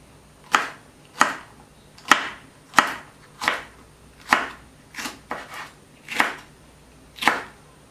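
Kitchen knife slicing a light-green capsicum into thin rings on a wooden chopping board. There are about ten slow, evenly spaced cuts, each ending in a sharp knock of the blade on the board.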